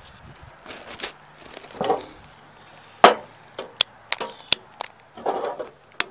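A hand-held lighter clicked again and again, about half a dozen sharp clicks mostly in the second half, with short rustling bursts between; the lighter is not lighting the fire.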